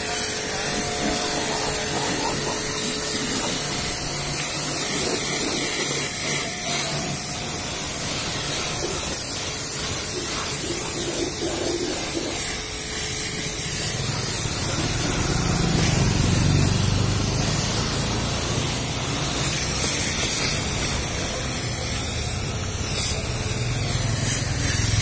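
Pressure washer jet spraying water against a car's body panels, a steady hiss that grows fuller and deeper about halfway through.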